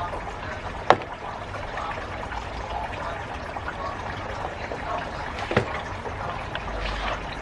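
Snake plant being potted: loose potting soil trickling and shifting in a planter, with two sharp knocks, one about a second in and one later.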